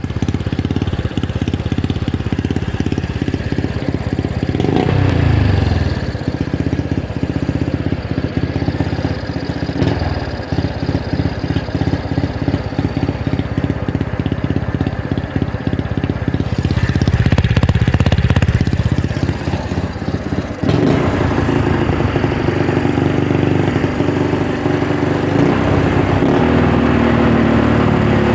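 Motorcycle engine with its stock muffler cut open, running loud and blipped up in revs twice, about five seconds in and again past the middle, with a change in its note near the end.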